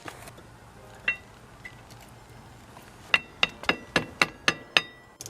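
Light metal-on-metal tapping, each tap leaving a short ringing note: a single tap about a second in, then a quick run of about eight taps near the end, roughly three a second.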